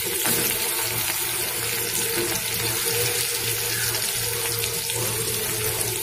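Sliced onions frying in hot mustard oil in a metal kadai: a steady sizzling hiss with no breaks.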